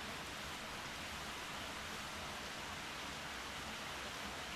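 Steady, even background hiss with nothing else standing out.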